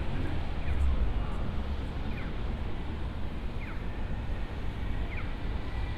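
Busy city street ambience with a steady low traffic rumble. Over it, a short falling chirp repeats about every one and a half seconds.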